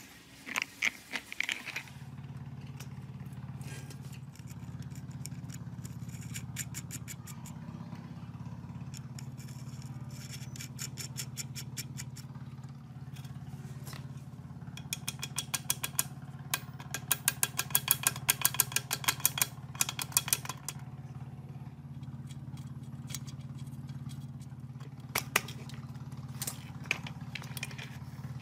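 A steady low mechanical hum, like a motor running, starting about two seconds in. Over it come several bursts of rapid, sharp tapping or clicking, the longest and loudest in the middle of the stretch.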